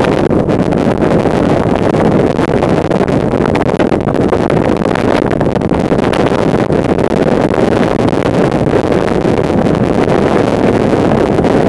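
Car driving over a sandy desert track, a steady rumble of engine and tyre noise mixed with wind buffeting the microphone.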